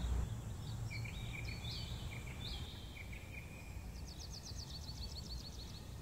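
Small birds chirping outdoors over a low background rumble, with a quick run of short, even trill notes about four seconds in.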